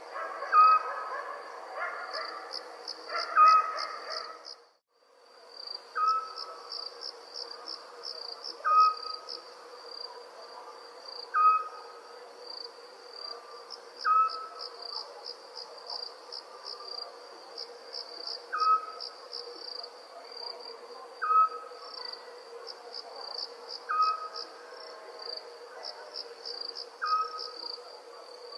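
Night ambience of crickets trilling steadily in quick pulses, with a short call repeating every two to three seconds. About five seconds in, all sound cuts out briefly and then resumes.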